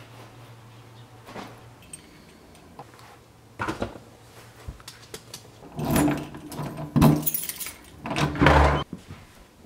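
A door being handled: a brass doorknob turned and the door worked open, with keys jangling, in several loud rattling bursts over the second half. A low steady hum runs underneath and stops about six seconds in.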